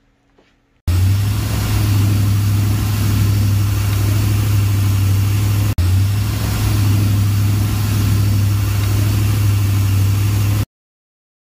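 Ford 460 big-block V8 in a jet boat, converted to Holley Sniper EFI, running steadily under way: an even, deep engine drone over a hiss of rushing water. It starts suddenly about a second in, drops out for an instant midway, and cuts off just before the end.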